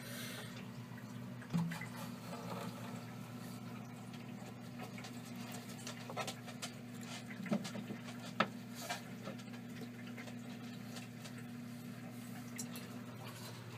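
A baby hamster moving about its cage beside a plastic exercise wheel: scattered light clicks and taps at irregular moments, the sharpest a little past the middle, over a steady low hum.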